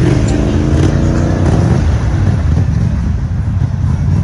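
ATV engine running hard and revving, with a pitched engine drone in the first couple of seconds giving way to a rougher low rumble.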